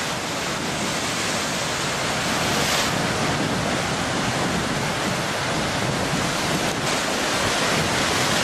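Ocean surf: a steady rushing wash of waves, swelling slightly about three seconds in and again near the end.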